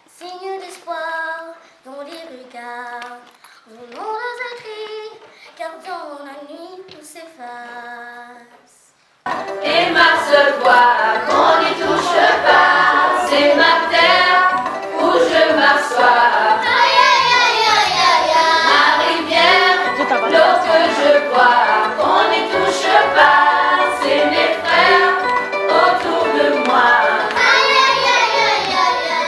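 A single voice sings short, separate phrases unaccompanied; about nine seconds in, a group of children and young people sings together much louder, coming in suddenly.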